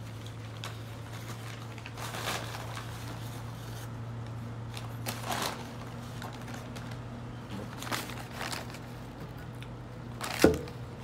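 Crackling and rustling of a phone being handled over a low steady hum, with a sharp knock about ten seconds in, the loudest moment.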